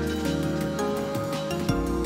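Instrumental background music with held notes and a steady light beat.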